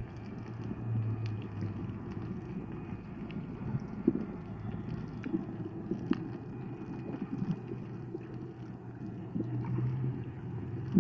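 Underwater ambience picked up by a submerged camera: a muffled low rumble with a low hum that swells near the start and again near the end, and scattered faint clicks and crackles.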